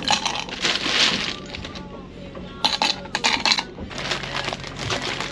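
Ice cubes clattering and clinking as they are dropped into a drinking cup, in several short bursts, with a plastic bag of ice rustling.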